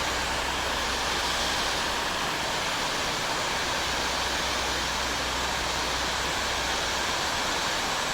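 Pressure washer spraying water in a steady hiss from the wand, with the machine's engine humming low underneath.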